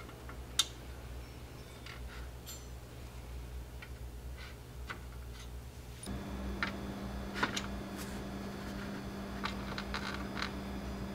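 Light clicks and taps of metal tweezers and small plastic kit parts as plastic spreader bars are set into a plastic model hull, scattered irregularly. A low steady hum underneath that gets louder about halfway through.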